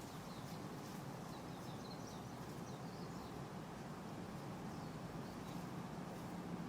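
Steady wind through new-leafed trees, with leaves and branches rustling against each other. Small birds chirp faintly and briefly in the first few seconds.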